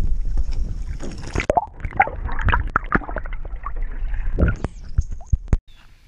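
Strong wind buffeting the microphone in a heavy low rumble, mixed with a run of knocks, splashes and handling noises from the canoe; it cuts off abruptly shortly before the end.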